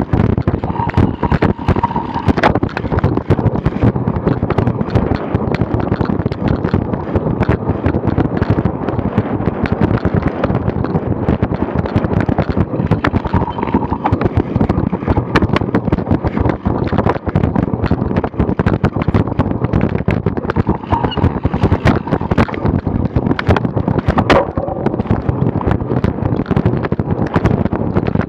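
Wind buffeting the microphone of a bike-mounted camera, with a dense, steady crackle of bumps and rattles as the bicycle is ridden fast over rough grass.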